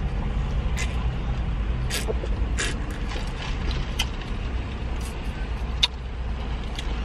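Scattered sharp clicks and crinkles of a plastic drink lid and paper cup being handled, over a steady low hum.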